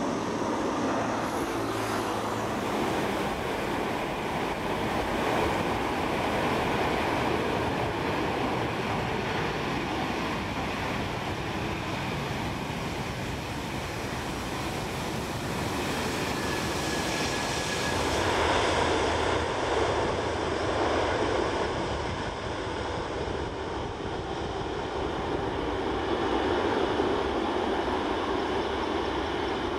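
Jet engine noise from an Airbus A330-300's Rolls-Royce Trent 700 engines during approach and landing rollout, a steady broad rush that shifts in character about 18 seconds in. During the rollout the thrust reversers are deployed.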